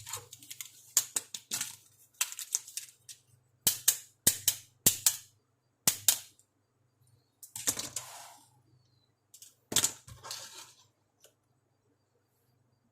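Small plastic parts of a toy makeup kit being handled during unboxing: a run of sharp clicks and taps, with two short rustling scrapes among them.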